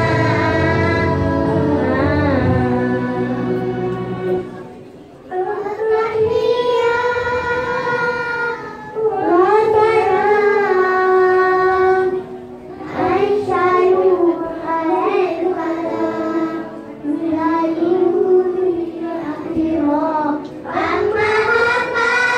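A child's voice singing a slow, wavering melody in phrases with short breaths between them. Instrumental backing is heard for the first couple of seconds and then drops away.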